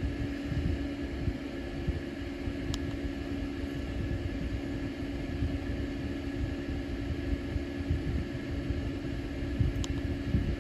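Two faint clicks about seven seconds apart as the rotary push-knob of an Autoterm Comfort heater controller is pressed to confirm each date setting. They sit over a steady mechanical hum and a low rumble.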